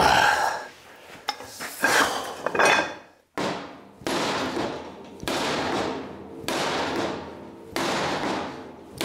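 Steel pipe clanking against the steel table as a cheater bar is taken off a pipe wrench, then a hammer tapping the 36-inch steel pipe wrench on a bottle jack's seized top nut, four light blows about one every 1.3 seconds, each ringing briefly, to shock the stuck nut loose.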